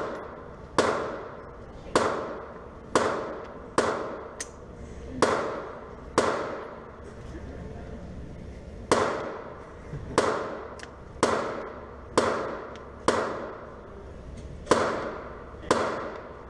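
Gunshots at an indoor firing range: about fifteen sharp shots, roughly one a second, each echoing off the walls, with a pause of a couple of seconds near the middle.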